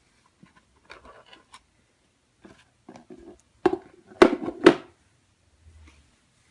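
Handling noises: soft rustling, then three sharp clicks or taps about half a second apart around the middle.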